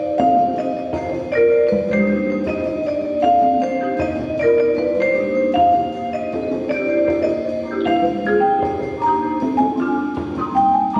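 High school percussion ensemble playing, carried by mallet keyboard instruments: quick runs of struck, ringing pitched notes over lower held notes.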